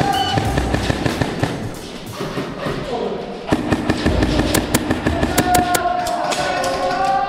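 Airsoft rifle firing, a quick string of sharp shots about four and a half seconds in, over background music with a steady beat.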